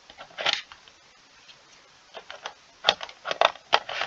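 Floppy disk being swapped in a floppy drive: a knock about half a second in, then a quick run of sharp plastic clicks and knocks from about two seconds in as the disk is pushed in and the drive latched.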